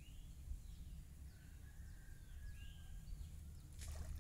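Faint bird chirps and a held whistled note over a low steady rumble, with a short splash of water near the end as a diver's head breaks the surface.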